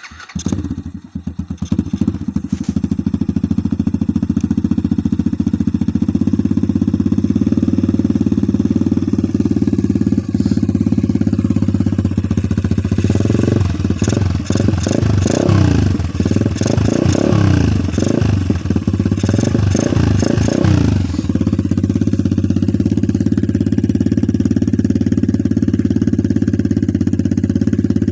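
Apollo RFZ Start 125 pit bike's single-cylinder four-stroke engine idling steadily just after starting. About halfway through it is revved in a series of throttle blips for several seconds, then settles back to a steady idle.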